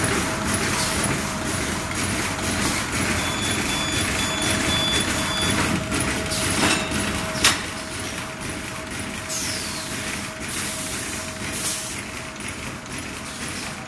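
Double-line heat-sealing and heat-cutting T-shirt bag making machine running: a steady mechanical clatter with a constant tone under it and repeated short clicks, one sharp click standing out about seven and a half seconds in.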